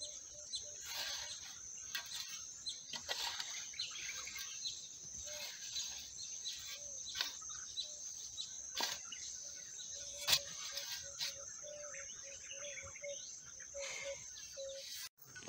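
A spade scraping and chopping into a heap of sawdust and biochar as it is turned to mix, in irregular strokes every second or two, one sharper hit about ten seconds in, over a steady high-pitched insect trill.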